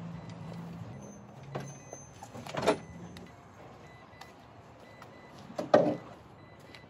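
Two sharp knocks about three seconds apart as hollow plywood raft modules are set down and handled while being loaded into a small car's cargo space, over a low steady hum that fades out in the first half.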